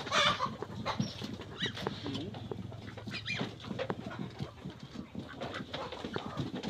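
A flock of chickens clucking and calling as they feed, with many short scattered calls and pecking clicks.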